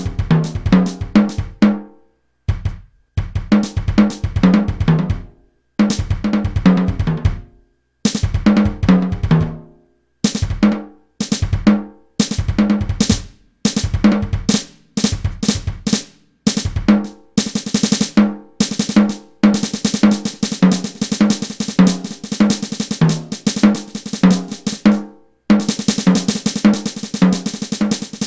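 Electronic drum kit recorded direct through a line cable: short grooves and fills of snare, bass drum, toms and cymbals in phrases of a couple of seconds, each followed by a brief, completely silent pause. About two-thirds of the way through it becomes a denser, continuous run of snare rolls and cymbal hits before stopping again.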